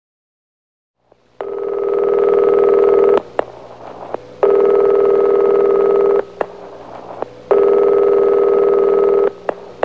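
Cordless home telephone ringing: three electronic rings, each about two seconds long with a second's gap between, starting after a moment of silence.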